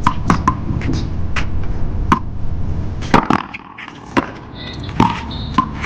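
Paddleball rally: sharp knocks of paddles striking the rubber ball and the ball smacking the wall, about ten in all at irregular spacing, the loudest about three seconds in.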